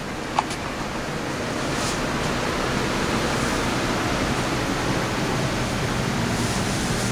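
Steady rushing of a blower running, growing a little louder over the first two seconds, with one sharp click just after the start.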